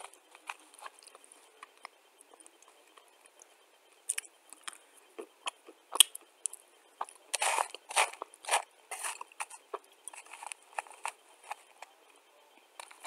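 Dry clay chunks being bitten and chewed: scattered crisp crunches and clicks, coming thickest a little past the middle.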